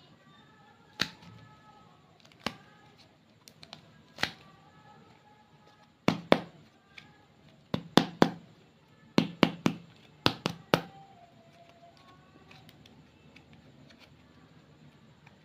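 A run of sharp clicks and pops from slime being pressed and worked by hand, bunched together in the middle, over faint soft background music.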